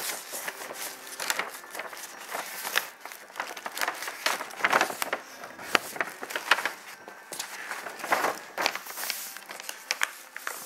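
Irregular light taps, clicks and scrapes with some crinkling, from small objects being handled close to the microphone.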